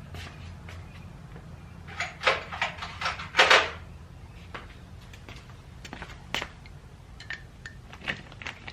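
Clatter and clinks of hand tools and hardware being handled, most of them in a quick flurry in the middle with the loudest knock near the end of it, then a few lighter clicks, over a steady low hum.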